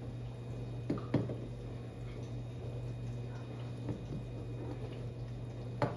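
Cups and glassware being handled and set down: four light knocks, two close together about a second in, one near the middle and one near the end, over a steady low hum.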